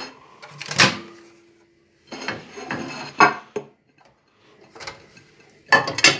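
A series of clunks, knocks and dish-like clatter from handling at a microwave oven, such as its door opening and shutting and a plate being set inside. One sharp knock comes about a second in, a cluster follows a second later, and the loudest comes near the end.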